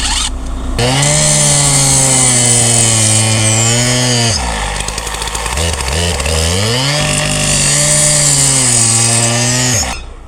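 Electric drill with a half-inch bit boring. The motor runs up, bogs down to a lower pitch in the middle as it loads, picks back up to speed, and stops abruptly near the end.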